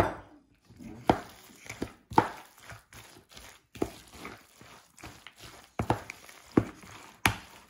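Hands mixing and squeezing cooked pasta with shredded vegetables in a plastic bowl: irregular soft squelches and rustles, one short burst with each turn of the hands.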